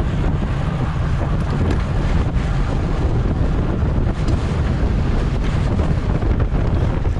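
Wind buffeting the microphone of a camera moving at racing speed on a bicycle: a loud, steady low rush with no let-up.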